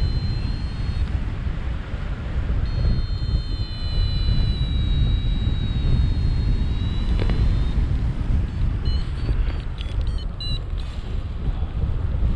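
Wind rushing over the camera microphone during a paraglider flight, a steady low rumble of wind noise. Faint high thin tones sound over it for a few seconds, and short high beeps come near the end.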